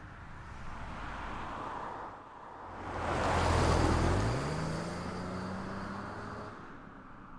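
2010 Volkswagen Touareg Hybrid passing close by, a loud rush of tyre and wind noise about three to four seconds in. Its engine note then rises steadily as it accelerates away.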